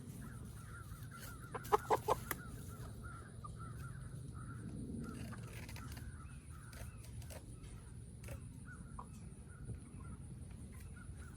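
Young free-range chickens clucking and calling with a wavering, chattering sound. About two seconds in there is a quick run of five or six short, sharp sounds, louder than the rest.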